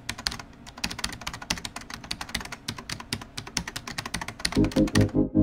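Rapid, irregular keyboard typing clicks, a typing sound effect. About four and a half seconds in, synthesizer music starts with an even pulsing beat.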